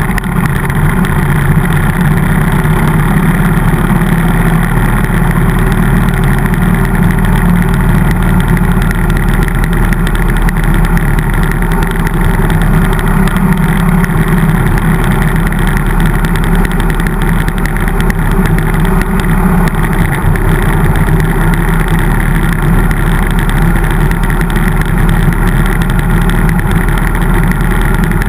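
Harley-Davidson V-twin motorcycle engine running steadily at cruising speed on an open road, loud and even throughout.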